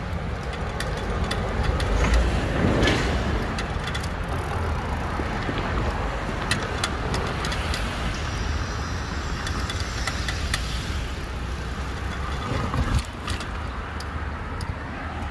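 Noise of a bicycle ride along a city street: a steady rumble of wind and road noise, with car traffic and a few light clicks.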